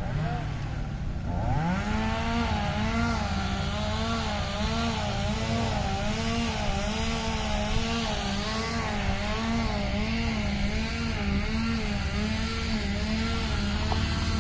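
Two-stroke chainsaw revving up about a second and a half in, then running at high speed, its pitch dipping and recovering over and over as it cuts through fallen wood.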